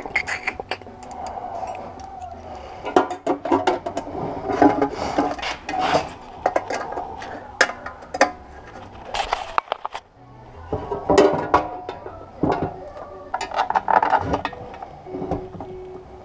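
Irregular clicks, taps and rattles of a sheet-metal battery box and its wiring being handled and fitted by hand on a wooden workbench.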